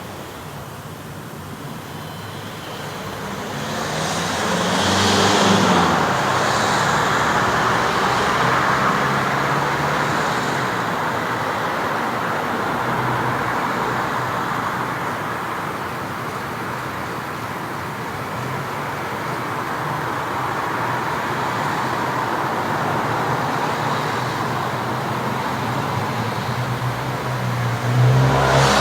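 Street traffic ambience: a continuous wash of cars going by, swelling as a vehicle passes about five seconds in and again near the end.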